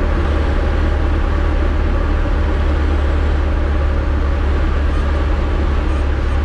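Steady low drone of a Diamond DA-20's propeller engine heard inside the small cockpit, throttled well back for landing, with rushing airflow over the canopy.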